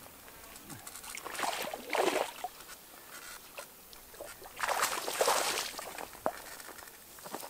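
Water splashing and sloshing in two bursts, the second about five seconds in and the louder, as a small carp is drawn over and into a landing net in the shallows.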